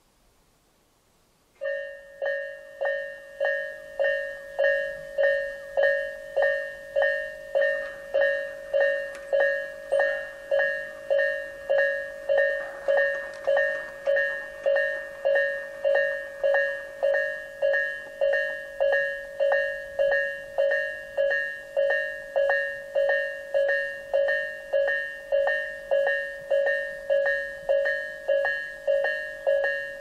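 Electronic warning bell of a Tobu Isesaki Line level crossing starting up about a second and a half in and dinging steadily at about one and a half strikes a second, each ding a fading tone. It is the Isesaki-type crossing sound, in a version slightly lower in pitch and slower in tempo.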